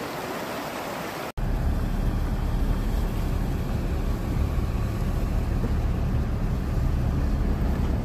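Rushing stream water, cut off abruptly about a second in by a car driving, a steady low road and engine rumble.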